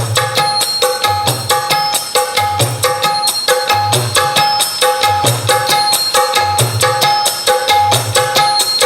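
Music with a fast percussion rhythm and regular deep bass beats, played through two bare speakers driven by an Electronic Works MOSFET audio amplifier board (5200/1943 transistors, bass and treble controls) during a sound test.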